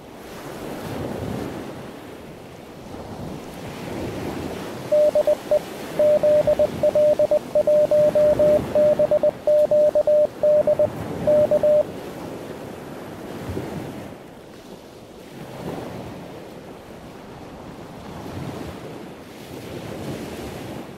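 Surf washing on a beach in steady, rolling waves. From about five seconds in, a single-pitch Morse code tone is keyed in dots and dashes for about seven seconds, louder than the surf.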